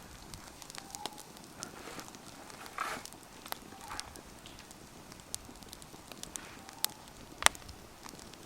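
Wood campfire crackling: irregular sharp pops over a soft hiss, the loudest pop about seven and a half seconds in.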